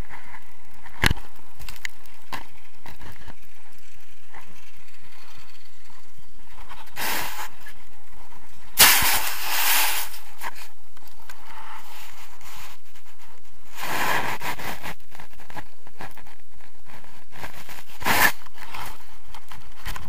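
Wind and handling noise on an action camera's microphone during a paraglider's landing in snow: a steady rush with scattered clicks and crackles, and a loud burst of scraping and rustling about nine seconds in as the pilot touches down and snow hits the camera. Further bursts of rustling and knocks follow as the pilot moves about on the ground.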